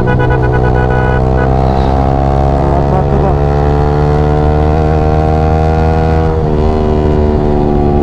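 Yamaha R15 V3's single-cylinder engine running at a steady cruise. Its pitch creeps up slowly, then drops a little about six seconds in.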